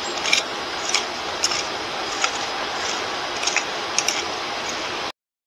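Garden hoe scraping and chopping through dry soil and dead plant debris, with sharp ticks of the blade striking roughly once a second. The sound cuts off abruptly near the end.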